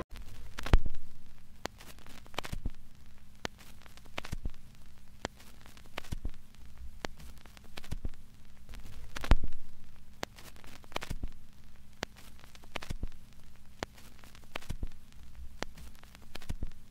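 Static-like crackle: irregular sharp clicks, one or two a second, over a steady low hum, with louder pops about a second in and again around nine seconds.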